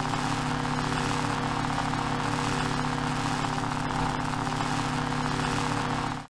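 Lightsaber idle hum sound effect: a steady low electric hum made of several held tones, with an even hiss above it. It holds unchanged and cuts off abruptly near the end.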